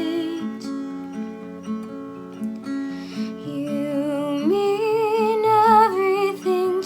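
Fingerpicked acoustic guitar playing a steady repeating pattern of about two notes a second, under a wordless female vocal with vibrato that rises in pitch about halfway through.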